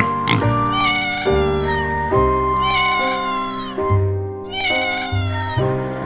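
Domestic cat meowing three times, each call dropping in pitch at its end, over background music with sustained notes.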